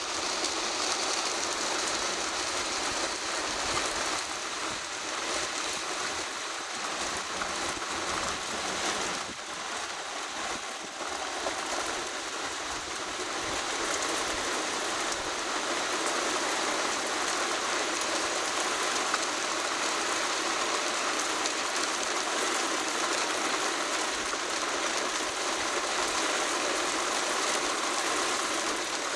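Steady rain shower falling and pattering on surfaces, an even hiss with no letup.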